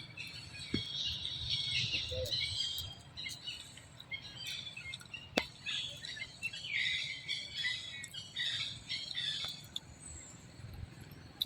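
Continuous high-pitched animal chirping and squeaking, with a single sharp click about five seconds in.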